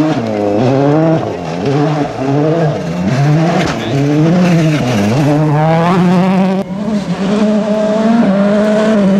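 Ford Fiesta RS WRC rally car's 1.6-litre turbocharged four-cylinder engine driven hard past the microphone, its pitch repeatedly climbing and dropping through gear changes and lifts. About two-thirds through the revs dip sharply, then hold steady and high.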